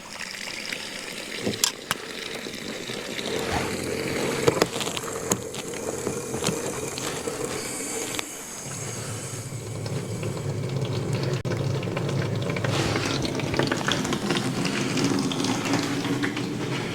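Water running from a hose into a 100-gallon water tank, a steady rush with a few knocks early on. The rush grows fuller and louder about halfway through.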